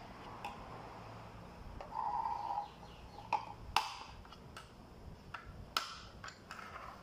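A metal tool tapping and punching into the lids of metal motor-oil tins to open them: a string of sharp metallic clicks and knocks, with a short steady tone about two seconds in.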